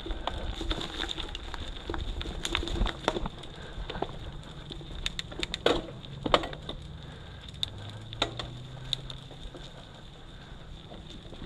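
Mountain bike moving over a rough dirt trail: irregular clicks and knocks from the tyres and bike, the sharpest a little past the middle. A low rumble, likely wind on the microphone, is heavier in the first few seconds.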